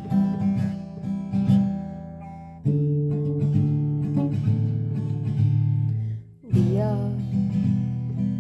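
Acoustic guitar strumming chords, changing chord about a third of the way in and again near the end, as the instrumental lead-in to a song.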